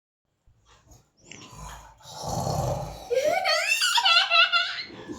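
Breathy sounds, then from about three seconds in a run of high-pitched laughter in quick pulses.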